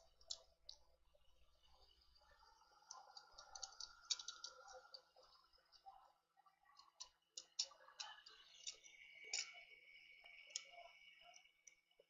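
Faint, scattered small clicks and taps from handling small tools and tablet parts on a repair bench, with a faint steady high whine joining about halfway through.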